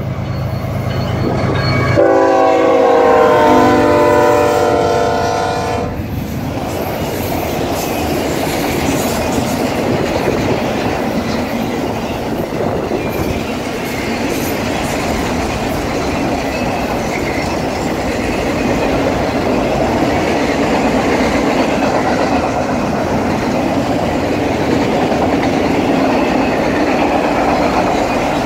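Norfolk Southern diesel freight locomotive passing close by, sounding its multi-note horn in one blast of about four seconds that starts about two seconds in. After the horn, a long string of autorack cars rolls by with a steady rush of steel-wheel noise on the rails.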